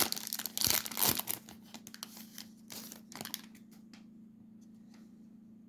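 Trading-card pack wrapper being torn open and crinkled: a quick run of sharp rips and crackles, thinning to a few crinkles by about three and a half seconds in. A faint steady low hum stays underneath.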